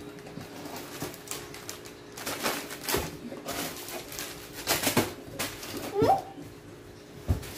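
Rustling of a cardboard box and grocery items being pulled out of it, with scattered knocks and thumps of packages and flaps against the cardboard, several of them around three and five seconds in. A brief rising squeak about six seconds in, over a faint steady hum.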